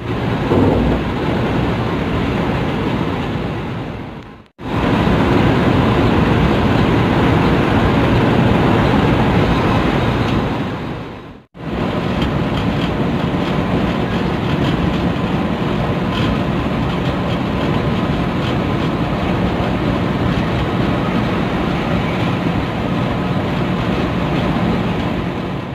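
Steady engine and road noise of an intercity coach on the move. It cuts out briefly twice, about four and a half and eleven and a half seconds in, then comes straight back.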